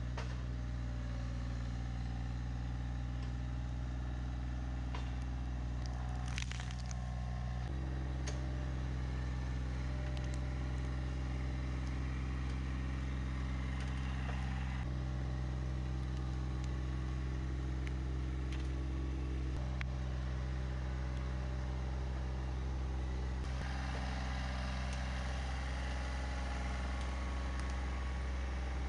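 Massey Ferguson compact tractor's diesel engine running steadily under the operator's control, its tone shifting slightly about eight seconds in and twice more later.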